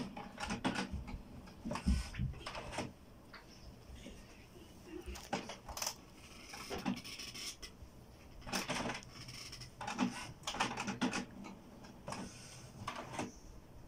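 HP Smart Tank 515 inkjet printer working through a print job: irregular bursts of clicking and clattering from its mechanism, with a short whir about six seconds in.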